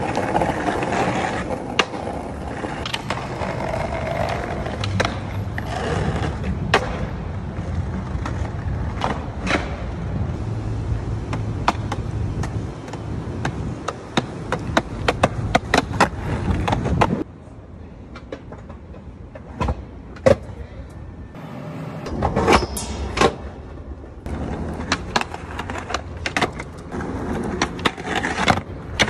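Skateboard wheels rolling over concrete with a steady rumble, broken by many sharp clacks of the board popping, landing and striking stone ledges, and the trucks grinding along ledge edges.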